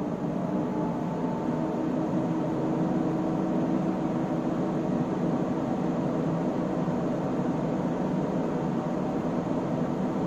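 Cooling fans of an Elgar SW3500A signal generator running just after power-on: a steady whoosh with a hum in it. It rises in loudness and pitch over the first second or two as the fans come up to speed, then holds steady.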